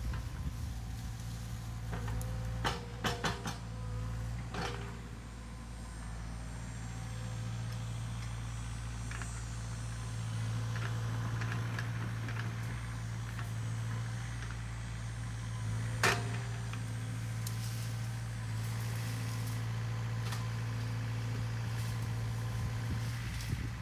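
Sany SY50U mini excavator's diesel engine running steadily with a low drone while it works, with a few sharp knocks: a cluster about three seconds in and a single louder one about sixteen seconds in.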